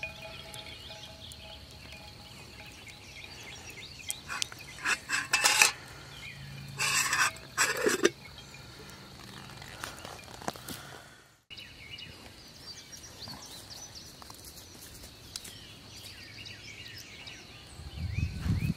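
A few short bursts of metal clattering and clinking, as a metal camping kettle is handled and set down, about a quarter to two fifths of the way in, with birds chirping in the background.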